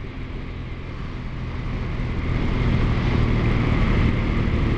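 Motorcycle engine running steadily under way, mixed with wind and road noise, growing louder over the first few seconds.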